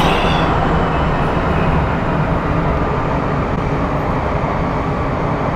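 Metro train running, a steady rumble and hiss heard from inside the moving carriage.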